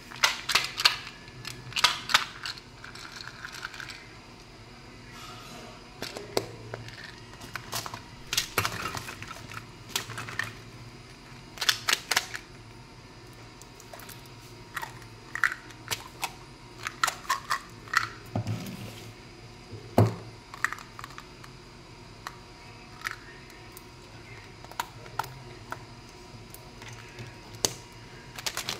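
Hands handling and opening small candy containers, a hinged metal candy tin and a plastic candy bottle: irregular sharp clicks and taps in short clusters, with brief pauses between.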